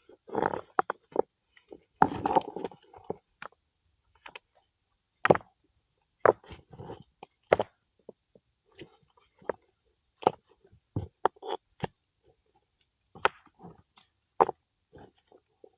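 A series of irregular sharp knocks and short scraping bursts, spaced unevenly with brief quiet gaps between.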